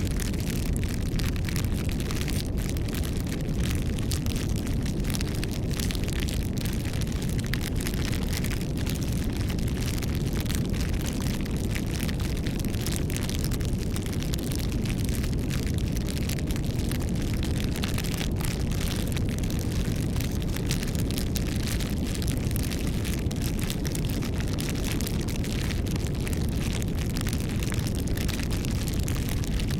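Campfire burning: a steady low rumble of flames with frequent small crackles and pops from the burning wood.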